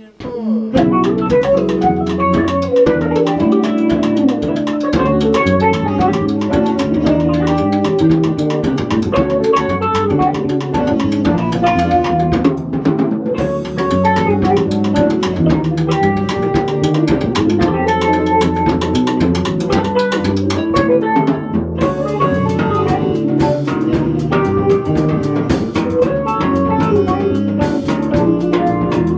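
A live instrumental band playing: drum kit, electric guitar, bass and saxophone, with synth guitar. The music comes in at once at the start, and the cymbals get busier about three-quarters of the way through.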